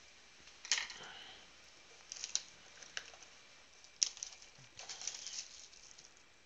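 A cardboard trading-card blaster box being handled and opened by hand: a few sharp taps and clicks, then a short rustle of cardboard and packaging a little before the end.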